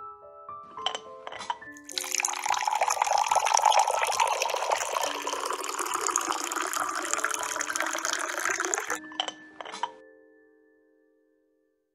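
Liquid pouring into a cup in a steady splashing stream for about seven seconds, starting and stopping abruptly, with a few light clicks just before and after it.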